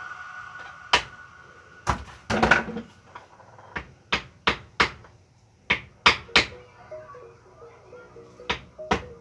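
Hammer tapping a wooden drift held against the input shaft of a Borg Warner Velvet Drive marine transmission: about a dozen sharp knocks in short irregular runs with pauses between.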